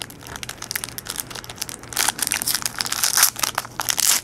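Foil wrapper of a trading-card pack crinkling and tearing as it is opened by hand: a dense run of crackles that grows louder about two seconds in.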